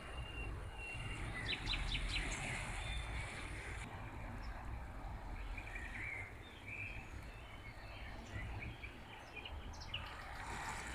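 Steady rush of a flowing river with wild birds chirping over it: a quick run of short notes about two seconds in, then scattered chirps later on.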